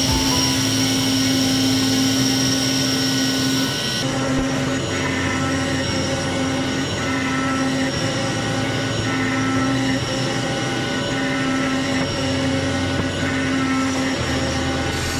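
A CNC router spindle running steadily with a high whine while milling wood. About four seconds in the sound changes abruptly, and then a tone comes and goes about once a second.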